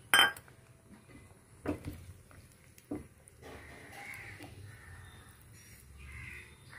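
Three knocks of a cooking utensil in a nonstick pan of curry as fried chhena balls are settled into the gravy with a silicone spatula; the first is the loudest. Crows are cawing faintly in the background during the second half.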